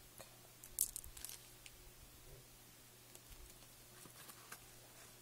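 A small glass vial of micro marbles is handled and set down: a few light clicks and taps about a second in, then sparse faint ticks.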